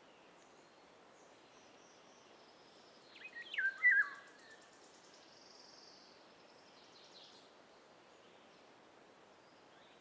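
Eurasian golden oriole singing one short whistled phrase that steps down in pitch, about three seconds in, over fainter high chirps and a steady background hiss.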